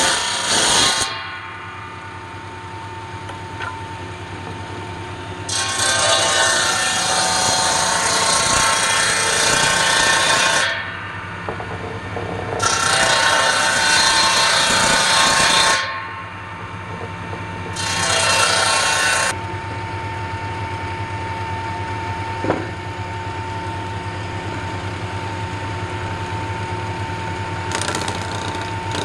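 Bench table saw running steadily with a constant hum, its circular blade cutting through wood in several passes: two long cuts of about five seconds each in the middle, shorter ones near the start, around two-thirds of the way through and near the end, with the blade spinning freely in between.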